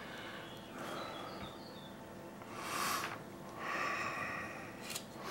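A man breathing through his nose close to the microphone, with two soft breaths about three and four seconds in.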